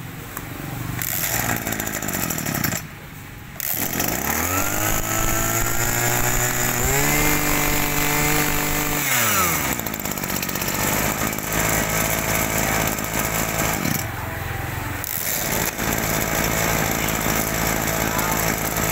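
Kioritz brush cutter's small two-stroke engine running. It falls quiet briefly about three seconds in, then revs up, holds at high speed for a couple of seconds, and drops back to a steady idle.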